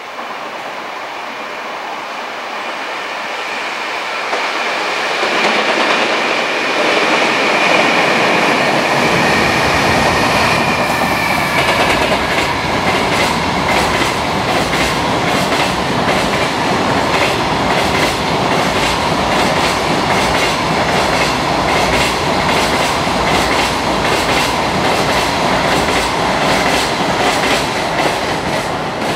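Electric-hauled freight train passing at speed on elevated slab track. The rumble builds as the locomotive approaches, with a high whine for a few seconds. Then the long line of container wagons runs by with a steady, rapid clatter of wheels over the slab-track joints.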